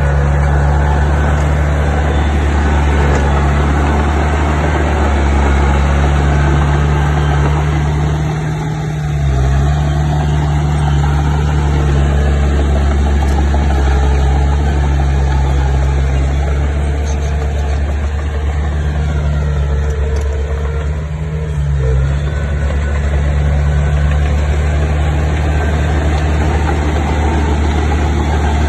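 Bulldozer's diesel engine running steadily, its note dipping briefly twice.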